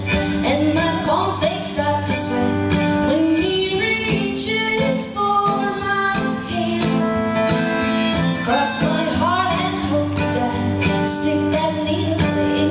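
A woman singing, accompanied by a strummed steel-string acoustic guitar.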